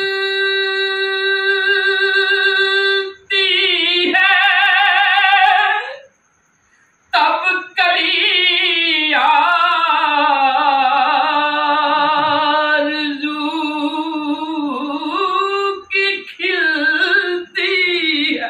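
A woman singing with long held notes that waver in pitch, with little or no accompaniment; the singing breaks off for about a second around six seconds in and stops near the end.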